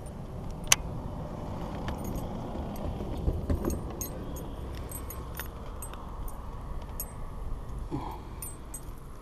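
Light metallic clinking and jingling, from a double-willow spinnerbait's blades and hooks dangling as a landed bass is held up, over a low handling rumble; one sharp click comes under a second in.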